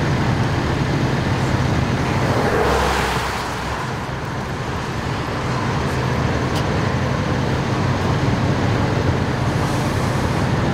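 Steady low hum of vehicle engines running with road noise; a vehicle passes with a rush of tyre noise about three seconds in.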